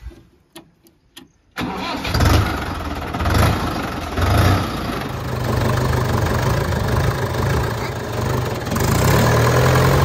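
Swaraj tractor's diesel engine started with the ignition key: a few clicks of the key, then about one and a half seconds in the engine fires abruptly and runs unevenly for a few seconds before settling into a steady idle.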